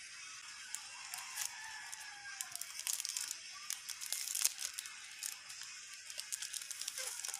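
Crinkling and crackling of plastic film and paper handled by hand, with irregular sharp crackles that are thickest and loudest a little past the middle, like film being peeled or torn off.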